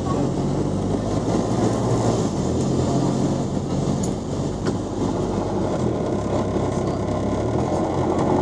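Bus engine running steadily as the double-decker drives along, heard from inside the bus, its note shifting about two and a half seconds in. A couple of light rattles sound around the middle.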